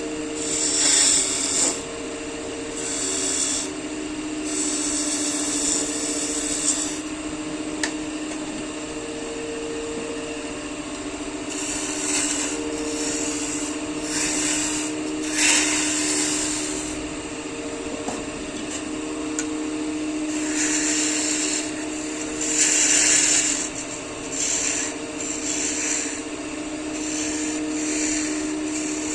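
Wood lathe running with a steady hum while a turning tool cuts the spinning wood in irregular hissing passes of a second or two each.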